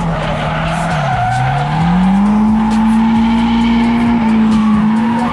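Drift car's engine revving during a slide, with its tyres squealing. The engine note dips about a second in, then climbs and holds high for a few seconds.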